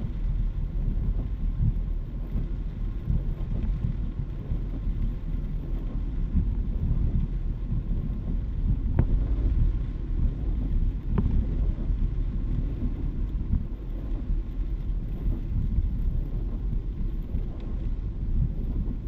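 A car driving through a heavy downpour, heard from inside the cabin: a steady low rumble of tyres on the flooded road and rain on the car, with a couple of faint ticks about nine and eleven seconds in.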